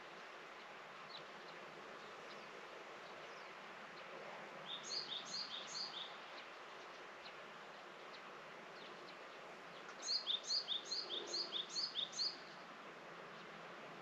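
A small songbird singing a short, high, falling three-note phrase in quick repeats: three times about five seconds in, then six times about ten seconds in. A steady outdoor hiss lies underneath.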